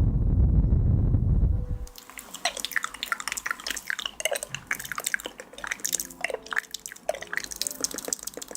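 Close-miked ASMR trigger sounds: a loud low rumble for about two seconds, then rapid wet clicks and small droplet-like plops, several a second.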